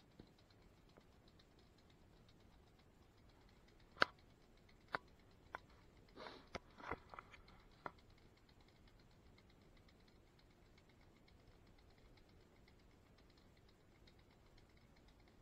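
Near silence with a faint hiss, broken about four to eight seconds in by a cluster of sharp clicks and knocks with a brief rustle among them.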